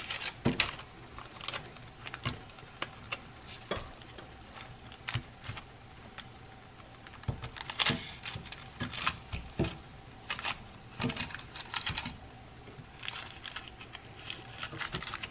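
Wooden chopsticks clicking and tapping irregularly against a non-stick air fryer basket as chicken drumsticks are turned over one by one.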